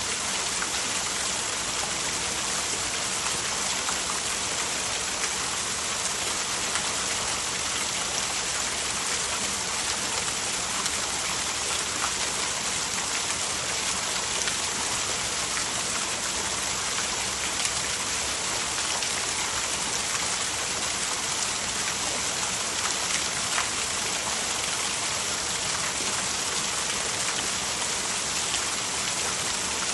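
Steady hiss of falling water, even and unbroken, with faint scattered ticks in it.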